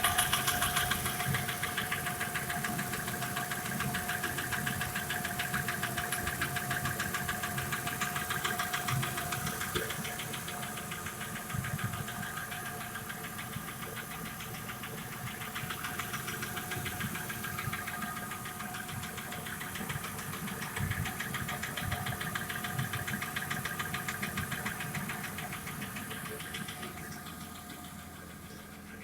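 Audi 2.6-litre V6 petrol engine (ABC) running with a fast, regular knock, heard around the left cylinder head near cylinder six. It is a knock that appeared some 10–15 thousand after a full rebuild.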